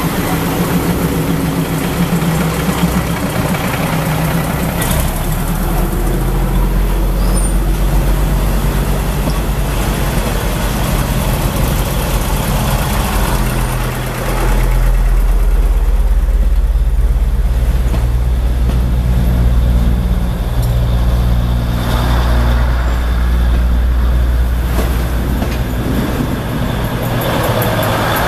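Japanese-built diesel railcar's engine running as the train pulls away at low speed, a deep steady drone that grows louder about fifteen seconds in.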